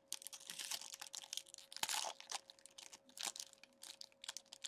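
Foil wrapper of a 2019-20 Upper Deck SP Game-Used Hockey card pack being torn open and crinkled by hand: a dense run of crackles, loudest about two seconds in. A faint steady hum runs underneath.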